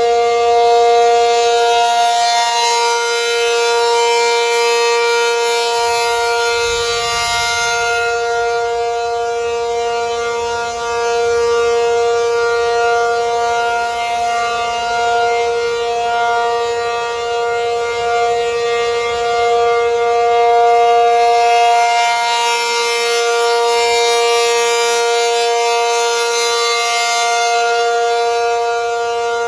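ACA Penetrator 50 outdoor warning siren sounding the steady Alert signal for a tornado warning: one loud, unbroken wail held on a single pitch. Its higher overtones swell and fade slowly, brightest near the start and again near the end.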